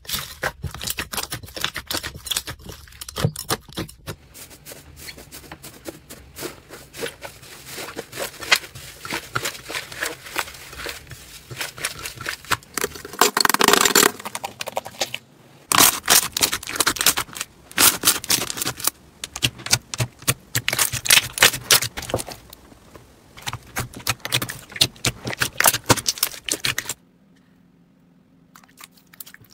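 Hands squeezing and pressing crunchy slime, some of it packed with foam beads, giving dense crackling and popping clicks. Near the end the crackling stops and only a faint low hum remains.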